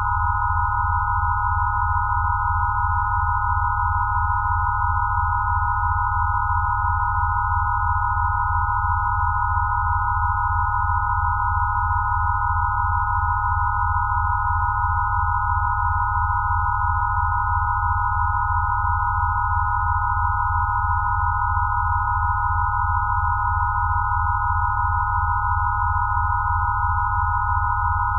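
Steady electronic sine tones of a 'rife frequency' set: several pure tones close together around 1 kHz over a low, evenly pulsing hum, unchanging throughout.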